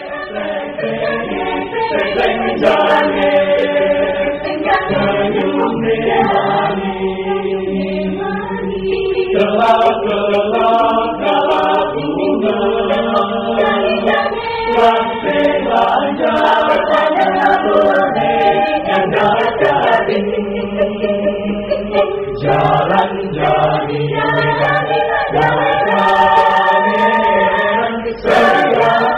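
Background music of a choir singing long, held chords in several voices.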